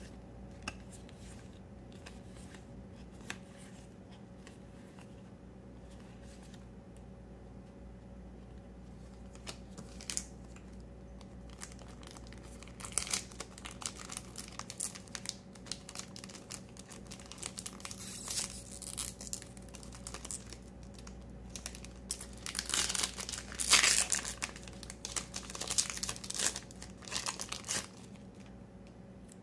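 A foil trading-card booster pack wrapper crinkling and tearing open by hand, in clustered bursts through the second half, loudest a little before the end. A few faint clicks of cards being handled come before it.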